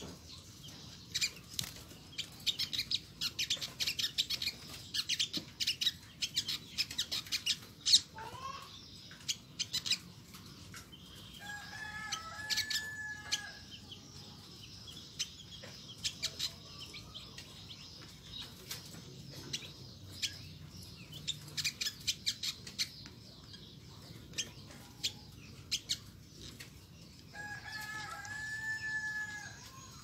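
Olive-backed sunbird (Nectarinia jugularis) calling with rapid runs of sharp, high chips in quick bursts, its typical 'nyecret' chatter.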